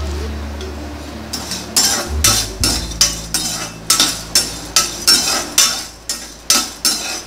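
Slotted metal spatula scraping and tossing whole spices as they dry-roast in a metal kadai. Brisk, even strokes, two to three a second, starting a little over a second in.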